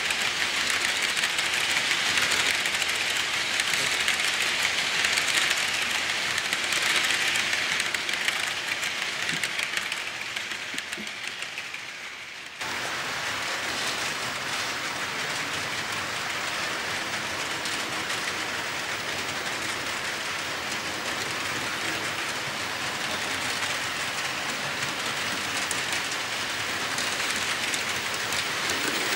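HO scale model freight cars rolling past on the track: a steady, hissing clatter of small wheels on rail. It fades a little after about ten seconds, then cuts suddenly to a slightly quieter, similar rolling noise as another train passes.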